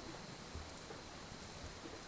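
Faint rustling and a couple of soft low thumps from guinea pigs moving about in their cage, over a steady hiss.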